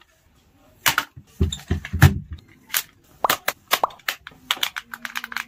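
Irregular sharp plastic clicks, snaps and knocks as batteries and battery covers are fitted into a toy remote-control truck and its transmitter. Some knocks are heavier thuds. A brief low steady hum comes near the end.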